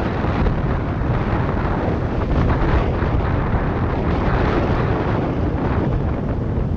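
Steady wind buffeting the microphone of a camera on a moving Yamaha Tricity 125 scooter, with road noise mixed in. It is a heavy, even rush, strongest in the low end.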